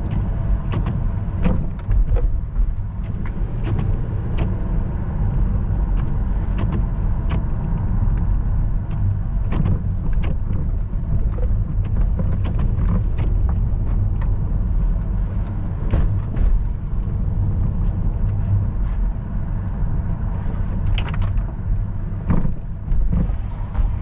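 Car interior noise while driving slowly: a steady low rumble of engine and tyres heard inside the cabin, with scattered sharp clicks and taps.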